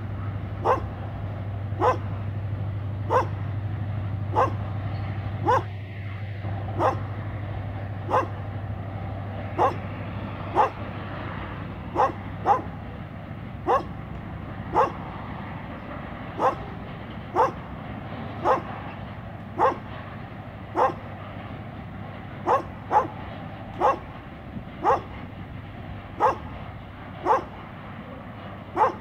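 A dog barking over and over at an even pace, about one bark every second and a bit. Under the barks is a low steady hum of a passing diesel freight train, strongest in the first few seconds.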